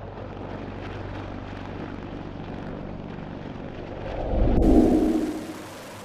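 Steady low rumble of a heavy helicopter. About four seconds in, a loud deep rumble swells up and fades, and near the end the sound switches abruptly to a steady, even hiss.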